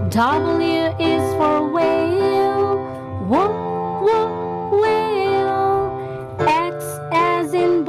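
Children's background music: a melody with sliding, swooping notes over a steady accompaniment.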